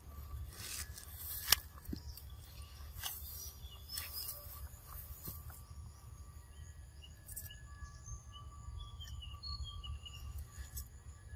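Outdoor ambience of birds chirping and insects droning over a low wind rumble. A sharp click about a second and a half in is the loudest moment, with a few fainter clicks after it.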